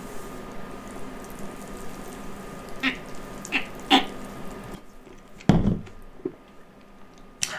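Slushy being sucked up through a drinking straw in a long steady draw, with three short louder slurps near the middle; the sucking stops just under five seconds in, followed by a single loud low thud.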